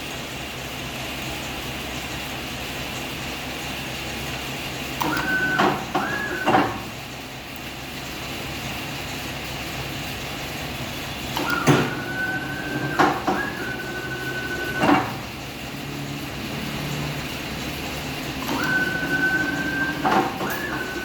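CNC wire bending machine for wire up to 8 mm working through its cycles over a steady mechanical hum. Three times, about five seconds in, around twelve to fifteen seconds and near the end, the machine's motors whine at a steady high pitch, each run starting and stopping with sharp clacks.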